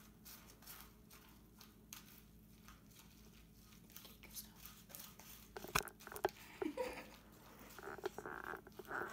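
Metal spoon stirring macaroni and cheese mixed with crushed Doritos in a small cup, with faint crunching and scraping clicks. A few sharper spoon clicks come around the middle, then louder handling bumps near the end.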